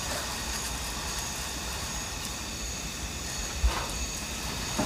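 Margarine sizzling in a pan over a wood fire: a steady hiss, with one brief knock a little after halfway.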